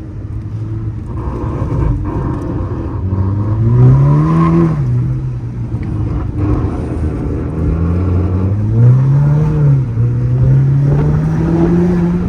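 Volkswagen Golf GTI Mk6's turbocharged 2.0-litre four-cylinder engine pulling hard on track. The engine note climbs, drops sharply about four and a half seconds in, climbs again, drops near ten seconds, then rises once more toward the end.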